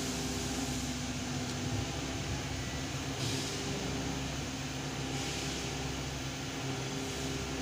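Steady mechanical hum of running machinery: a low drone with a few held tones and a hiss that shifts slightly about three and five seconds in.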